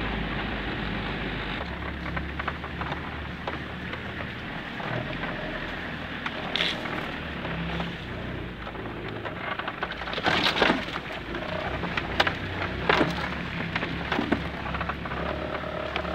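Toyota Land Cruiser LJ73's diesel engine running at low speed on a rough dirt trail, with the body rattling and a string of sharp cracks and knocks, the loudest about ten and a half seconds in.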